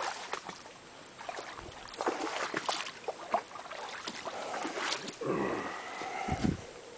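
Footsteps crunching and rustling through dry fallen leaves, uneven steps with crackling leaf litter underfoot. A short pitched sound comes in about five seconds in.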